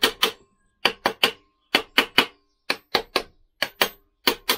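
Steel bar tapping on a Lambretta engine's gearbox hub: sharp metal knocks in quick clusters of two or three, about sixteen in all. Each tap seats the gearbox end plate a little further, closing up the gap on the shim.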